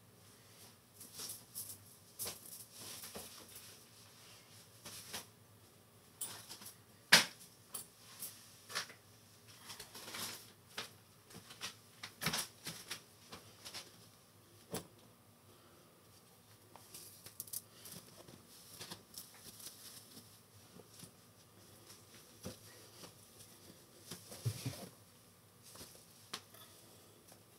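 Cloth rustling and flapping as a dark garment is handled and shaken out, with scattered light clicks and knocks and one sharp click about seven seconds in.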